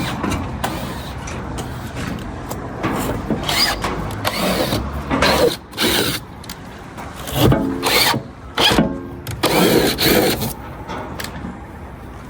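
A power drill or screw gun running in several short bursts, over a low steady engine rumble in the first few seconds.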